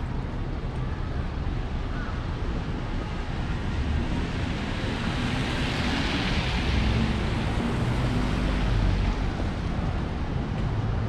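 Wet city street: steady hiss and low traffic rumble, with a vehicle passing on the wet road, its tyre hiss swelling up and fading about halfway through.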